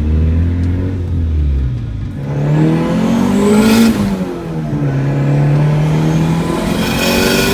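Turbocharged Honda D16Y8 four-cylinder engine of a 2000 Civic EX pulling through the gears: the engine note climbs for about two seconds, drops at a gearshift about four seconds in, then holds and climbs again before another shift near the end, with a brief rush of noise at each shift.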